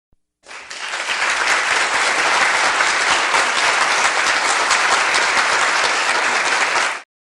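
Applause sound effect: a crowd clapping. It swells in over the first second and cuts off abruptly near the end.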